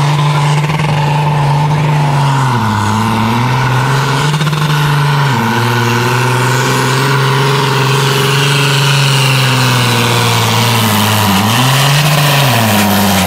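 John Deere farm tractor's diesel engine running hard at high revs while pulling a weighted sled. Its pitch sags and recovers a few times under the load, with a high whine riding over the engine note.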